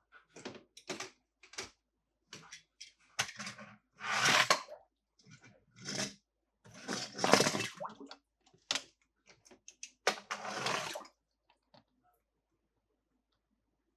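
Toy packaging being handled and opened: plastic and card crinkling and rustling in irregular bursts, with sharp clicks and cracks in between, stopping near the end.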